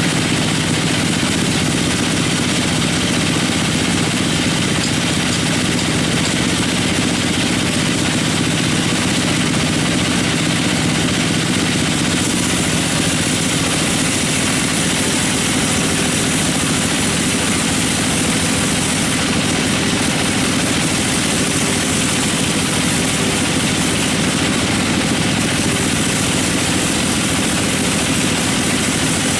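Sawmill machinery running steadily: an even engine-like drone with a constant hiss above it, unchanging throughout.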